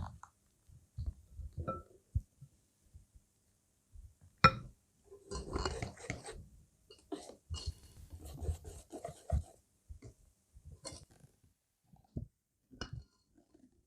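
Kitchen handling sounds: scattered clicks and knocks of utensils and dishes, with a sharp knock about four seconds in and two short stretches of scraping or rustling.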